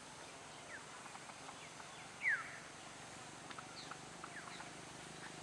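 Birds calling in short falling chirps, the loudest a little over two seconds in, with a few faint ticks over a low steady background.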